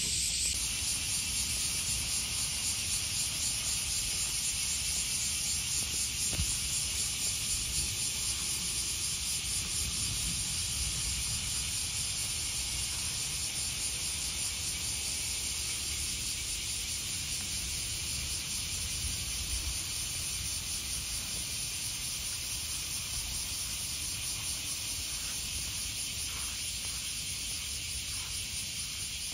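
Steady high-pitched shrilling of an insect chorus in grass, slowly fading, over a low uneven rumble.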